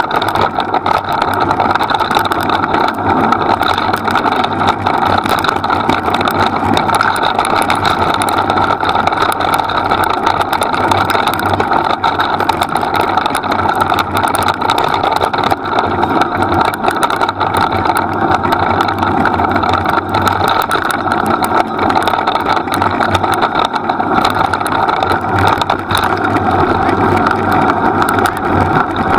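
Steady rolling and rushing noise of a dog-drawn wheeled rig moving fast over a dirt forest trail, with wind on the microphone, continuous and unchanging.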